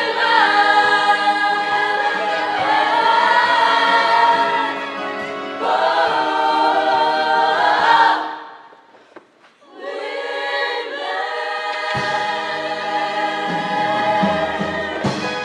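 Show choir singing long held chords in full harmony, breaking off for about a second midway and then coming back in on new sustained chords.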